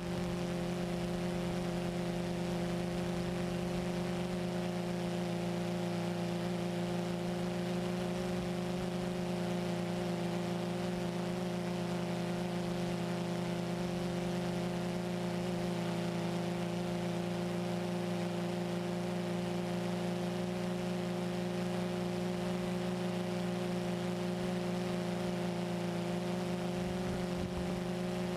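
Small multirotor drone's electric motors and propellers humming at a steady, unchanging pitch, recorded by the camera on board, over a light hiss.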